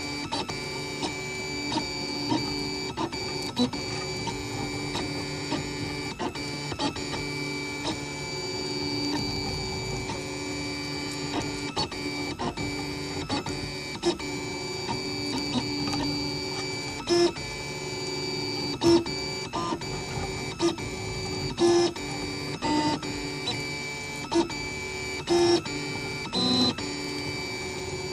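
3D printer's stepper motors whining through print moves. The steady tones change from one move to the next, with frequent short clicks and several sharper knocks in the last ten seconds.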